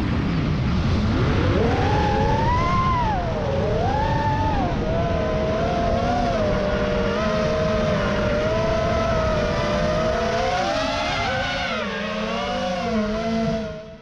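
Multirotor drone's propellers and motors whining, several close pitches rising and falling together over a steady low buzz. The sound fades out near the end.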